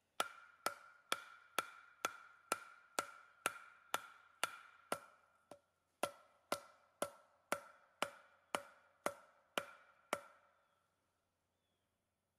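A wooden baton striking the top of a hardwood stake to drive it into the ground. There are about twenty sharp, ringing knocks at a steady two a second, with one short pause a little past five seconds, and the knocking stops near the end.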